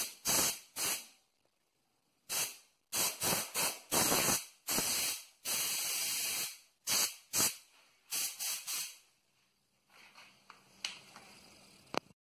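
Compressed air blowing from the nozzle of a coiled air hose fed by a compressor, released in a series of short blasts with one longer blast of about a second midway. Near the end a fainter hiss follows, with a few sharp clicks.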